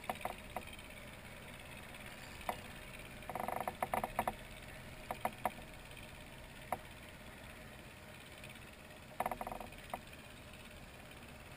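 Fishing reel clicking in short rapid bursts, half a dozen times with single ticks between, while a big salmon is played on a bent rod.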